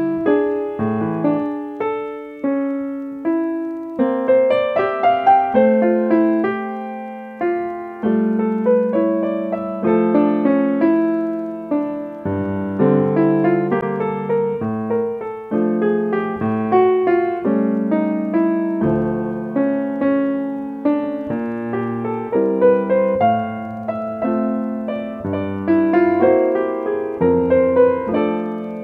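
Background solo piano music: a steady flow of struck notes and chords, each note fading after it is played.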